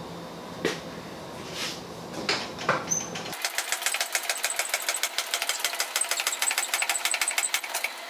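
Hydraulic scissor lift being pumped up under a load. A few separate clicks and knocks come first; then, about three seconds in, a rapid, even run of sharp clicks begins as the table rises.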